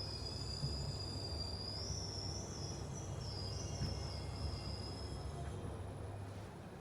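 Hitachi elevator, built in 2019, running with a high, steady squeal that wavers in pitch midway and fades out about five and a half seconds in, over the low rumble of the car travelling, which drops away near the end. The squeal is an abnormal noise for so new an elevator.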